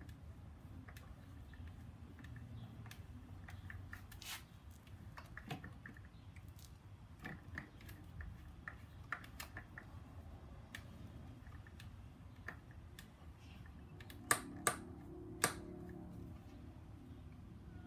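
Scattered light clicks and knocks from hands working on a pressure washer that is not yet running, with three sharper clicks in quick succession near the end.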